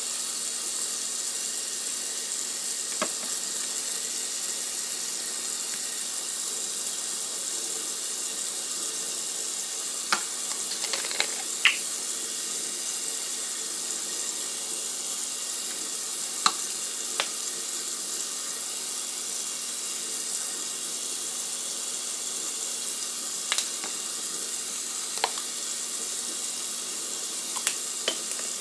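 Food sizzling steadily in a hot frying pan, a continuous high hiss, with a few light clicks scattered through it.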